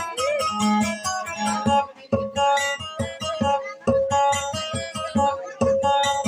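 Acoustic guitar played solo, a picked melody over quick, evenly repeated bass plucks.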